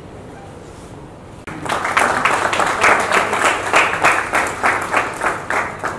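Audience applauding, starting about a second and a half in, as a bouquet is presented.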